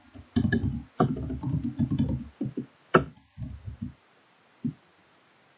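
Computer keyboard keystrokes and mouse clicks, a cluster of short knocks over the first four seconds with one sharper click about three seconds in, then quiet.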